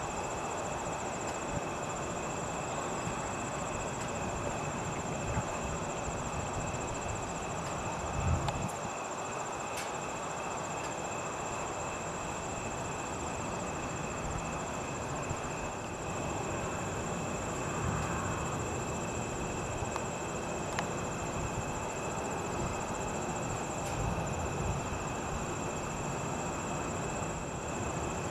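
Steady outdoor night ambience: a constant rumbling hiss under a steady high chirring drone of insects, with a brief low thump about eight seconds in and a couple of fainter low swells later.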